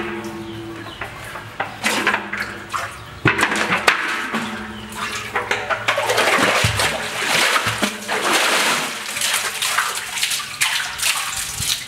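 A plastic bucket dipped into water at the bottom of a well: splashing and gurgling as it fills, loudest in the middle, then water sloshing and streaming off it as it is drawn up full.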